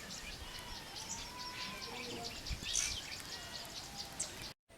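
Birds chirping with many short, high calls over outdoor background noise. The sound cuts off suddenly near the end.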